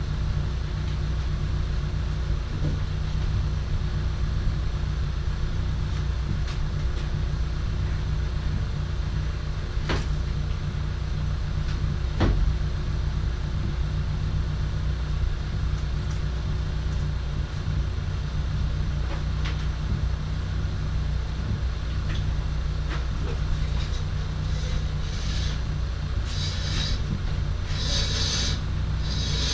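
A steady low hum runs under a few light knocks as a sling is fitted to a car hardtop. Near the end come a series of short rasping pulls: rope running through a ceiling-mounted pulley hoist as the hardtop is lifted.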